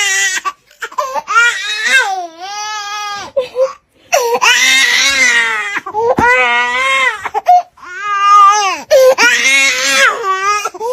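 Baby crying in about six long wails, each a second or two long, with short breaks for breath between them.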